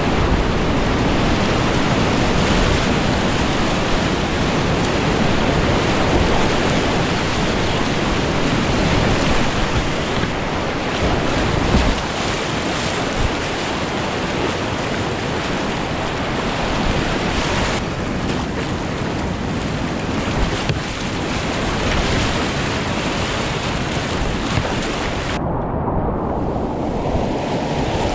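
Loud, steady rush of whitewater on the Great Falls rapids of the Potomac, mixed with wind noise on the microphone. The sound turns muffled for the last couple of seconds.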